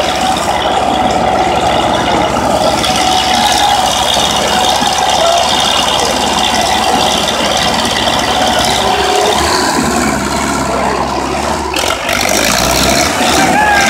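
Diesel engines of two MTZ-80 tractors running hard under heavy load, pulling against each other on a chain, a steady loud drone throughout.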